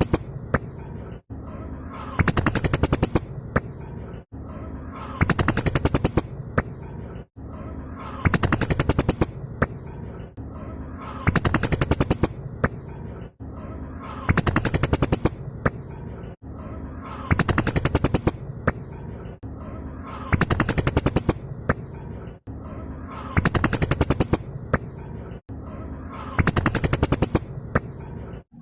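Blue-crowned hanging parrot (serindit) giving rapid, high-pitched rattling trills, the 'tembakan' shots. Each lasts about a second and they repeat evenly about every three seconds over a steady background hiss.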